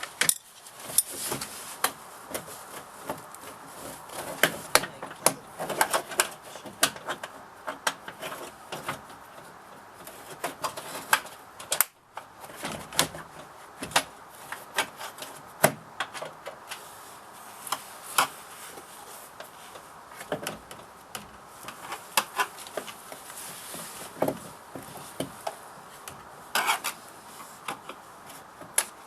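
Irregular clicks, taps and knocks of hard parts being handled and fitted, with some rubbing: hands working on the window crank mechanism inside a car door.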